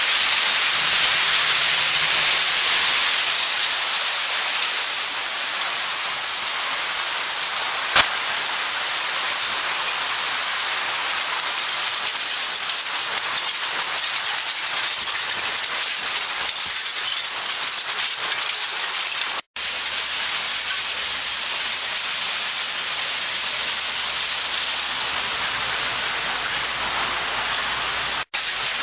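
A screening machine sifting loose material: a steady, rain-like patter and rush of chips or soil falling through and off the screen. There is a sharp tick about eight seconds in, and the sound cuts out briefly twice.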